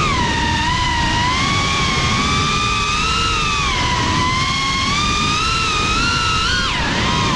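Motors of a GEPRC CineLog 35 FPV quadcopter whining in flight, the pitch rising and falling with throttle over a rush of air noise. Near the end the pitch drops sharply and climbs straight back, a quick throttle chop.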